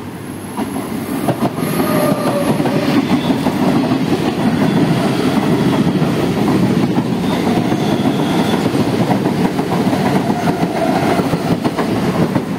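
Two Central Railway suburban EMU local trains passing each other on adjacent tracks, heard from an open coach doorway: a loud, dense rattle and clickety-clack of wheels over rail joints that swells about a second in as the oncoming train draws alongside and eases near the end as its last coaches go by.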